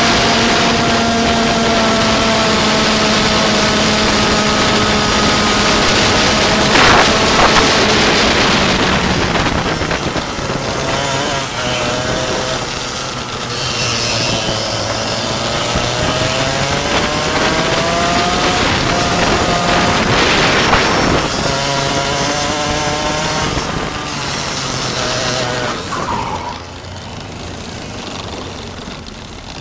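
Go-kart engine running at high revs, its pitch dropping as it slows and then climbing again as it accelerates, with two brief rushes of noise; the engine fades away near the end.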